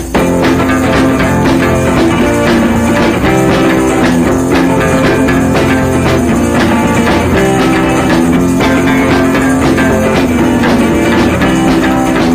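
Loud background music with guitar and drums, a steady upbeat rock-style track.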